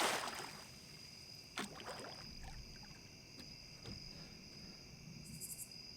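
Night insects, crickets, keeping up a steady high-pitched chorus. A short burst of water-like noise comes right at the start, then a few faint clicks and knocks.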